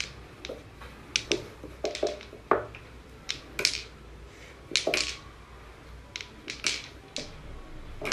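Irregular hard clicks and knocks, about a dozen, some with a short ring: small balls on a miniature toy pool table knocking against each other and the table's frame as a cat paws them about.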